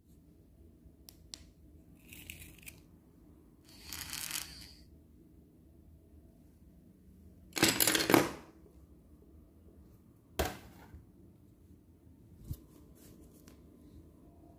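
Hands handling drawing gear on a wooden desk: a couple of small clicks, short rustling and sliding scrapes of paper, the loudest about eight seconds in, then a sharp click and a light tap, over a faint steady low hum.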